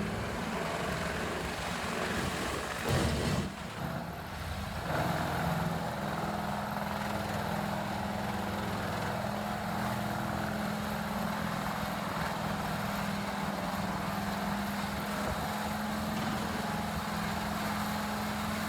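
Large horizontal grinder's engine running steadily under load, with a constant low hum and a brief louder surge about three seconds in.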